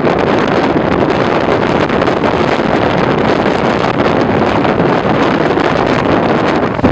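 Storm surf churning and breaking against rocks, a loud, steady rush of noise, with strong wind buffeting the microphone.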